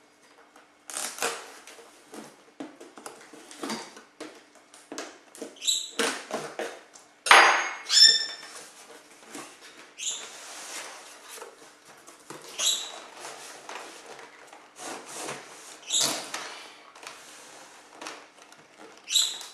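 Corrugated cardboard shipping case being torn open by hand: a series of irregular rips, scrapes and rustles of cardboard, several with short high squeaks. The loudest two rips come about seven and eight seconds in.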